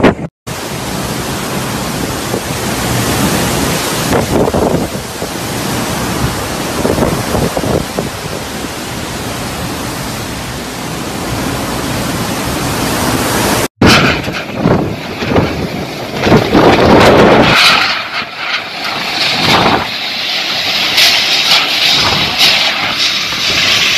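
Typhoon-force wind and heavy rain, a loud, even rushing noise that swells and falls with the gusts and buffets the microphone. It breaks off about 14 seconds in, and gustier bursts follow.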